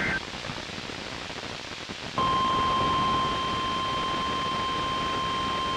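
NOAA Weather Radio alert signals over a constant hiss of weak reception: the last burst of the digital SAME header ends right at the start. About two seconds later the steady 1050 Hz warning alarm tone begins and holds, heralding a newly issued warning.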